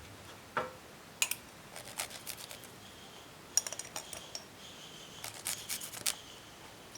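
Light, irregular clicks and clinks of small hard objects being handled on a table, a few with a short metallic ring.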